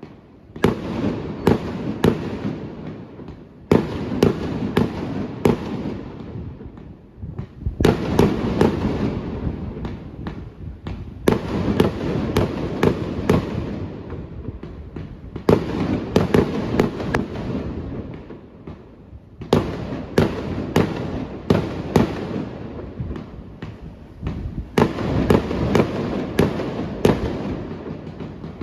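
Fireworks going off in volleys about every three to four seconds. Each volley is a cluster of sharp bangs followed by a dense crackle that fades before the next.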